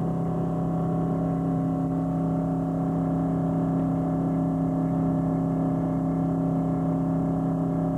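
Fishing boat's engine running with a steady hum.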